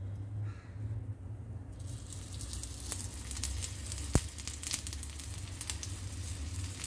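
Ghee sizzling and crackling on a hot tawa as it is spooned onto oat cookie dough. The sizzle starts about two seconds in, with a single sharp click about four seconds in.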